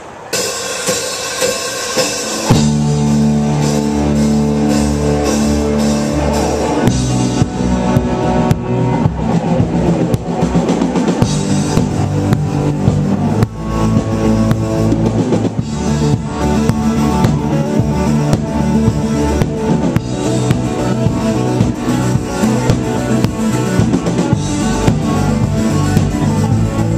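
Rock song with drum kit and guitar. A lighter intro opens it, and the full band comes in about two and a half seconds in.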